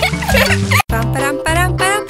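Playful children's cartoon background music with a steady bass line and a bouncy melody. It cuts out for an instant a little under a second in, then starts again.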